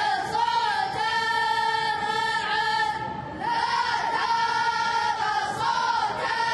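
Voices singing together in long, held phrases, with a short break about three seconds in.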